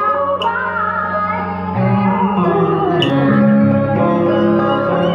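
A woman sings a slow Vietnamese song into a handheld microphone, amplified, holding long notes with vibrato. Instrumental accompaniment with plucked strings plays under her.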